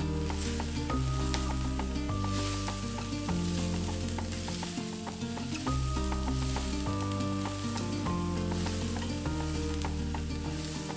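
Food sizzling and being stirred in a frying pan, with small clicks of the utensil against the pan, over background music that changes chord about every second or so.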